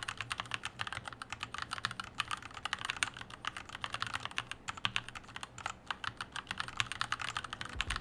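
Typing at speed on a Dygma Defy split mechanical keyboard fitted with Gateron G Pro 2 Yellow linear switches and ABS keycaps: a rapid, even stream of keystroke clicks.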